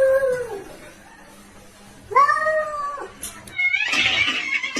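Domestic cat meowing: two long, drawn-out meows, the first ending about half a second in and the second starting about two seconds in, followed near the end by a short, noisier sound.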